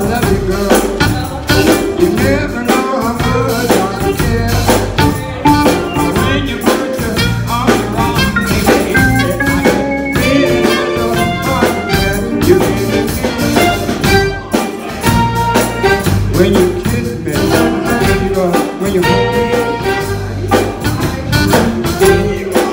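Live blues band playing: saxophone, electric keyboard, electric guitar, bass guitar and drum kit, over a steady drum beat.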